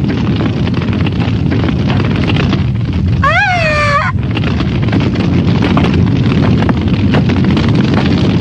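Continuous low rumble of an anime explosion sound effect, with fine crackling throughout. A woman's short, high-pitched cry cuts in briefly a little before the middle.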